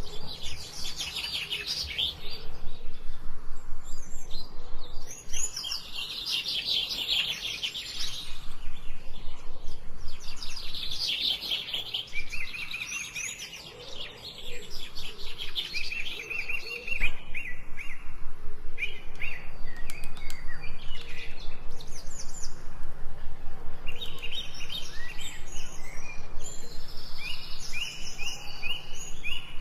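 Songbirds chirping and singing in quick runs of high notes, one series after another, with a brief lull about halfway through. A faint steady low hum runs underneath.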